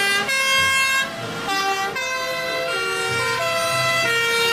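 Two-tone sirens of several fire engines passing in a convoy, each alternating between two pitches and sounding out of step with the others, so the tones overlap.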